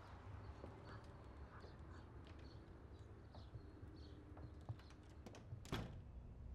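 Quiet hallway room tone with faint taps and clicks, then a sharper click near the end as a man works a door at the end of the hallway.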